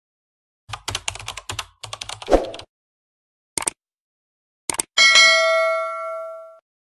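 Subscribe-animation sound effects: about two seconds of rapid keyboard typing clicks, two single clicks, then a bell ding that rings out and fades over about a second and a half.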